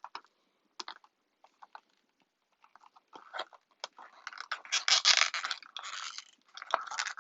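Product packaging being handled and opened by hand: a few scattered taps and clicks, then about three seconds of loud crinkling and rustling from about four seconds in.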